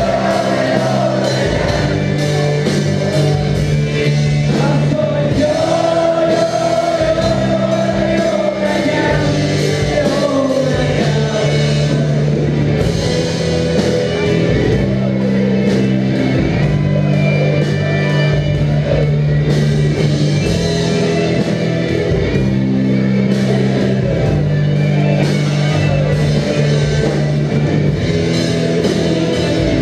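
Live rock band playing: electric guitars, bass guitar and drums, with a steady bass line changing notes every couple of seconds and held, wavering notes on top.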